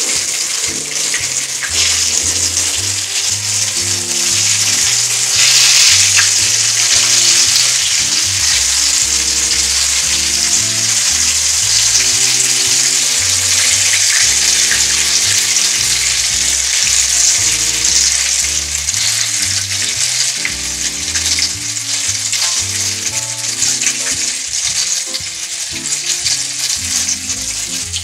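Cornmeal-breaded green tomato slices frying in hot oil in a skillet: a steady loud sizzle with many small pops.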